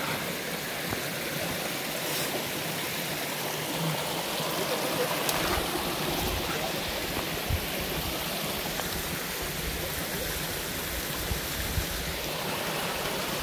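Steady rushing of a mountain stream, with a low rumble on the microphone from about halfway through.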